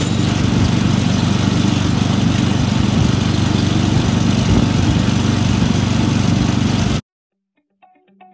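Small engine of a wire roller for electric fence wire running steadily, then cutting off abruptly about seven seconds in. Faint guitar music starts just before the end.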